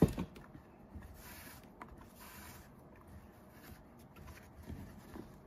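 A sharp thump right at the start, then faint rustling and rubbing of t-shirt yarn being worked with a crochet hook, with a few small clicks.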